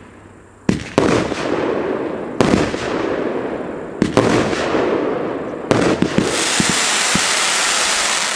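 Aerial fireworks display: about five sharp bangs of bursting shells, each trailing off in crackling rumble, then from about six seconds in a steady hissing rush as sparks spray upward.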